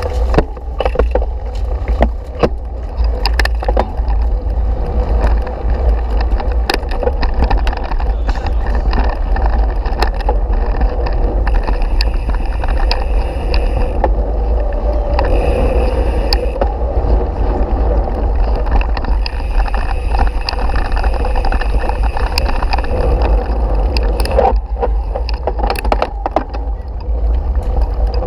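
Mountain bike ridden over a dirt and gravel track, heard from a camera mounted on the bike: a steady, heavy low rumble of tyres and wind on the microphone, with frequent knocks and rattles as the bike goes over bumps.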